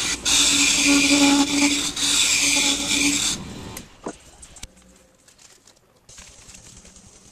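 Wood lathe running while a tool or abrasive rubs the spinning hardwood, a loud hiss over the lathe's steady hum. It stops abruptly about three seconds in, leaving near quiet with a couple of light clicks.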